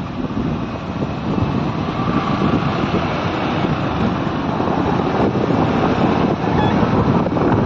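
Wind buffeting the microphone on a moving motorbike, over engine and road noise, growing slightly louder.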